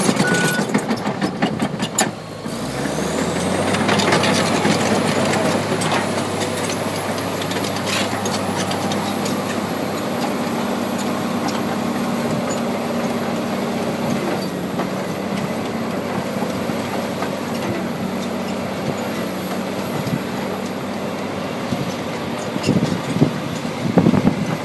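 Komatsu D65EX-15 bulldozer's diesel engine: about two seconds in the sound dips, then the engine revs up with a rising high whine and runs steadily under a continuous high whine. Irregular clanks and knocks come in near the end.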